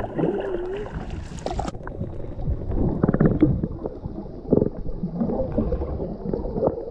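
Water sloshing and gurgling along a kayak hull. About a second and a half in, the sound goes muffled as it passes below the surface, and from then on it is underwater gurgling and rushing with scattered dull knocks.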